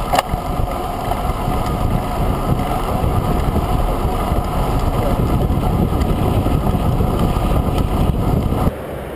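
Wind rushing over the microphone of a camera mounted on a moving road bike, mixed with the hum of the tyres rolling on tarmac: a steady rumbling noise that stops abruptly near the end.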